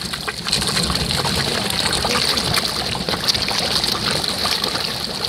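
A mass of carp and koi churning at the water's surface as they crowd together to feed: many small splashes and slaps of water in quick, continuous succession.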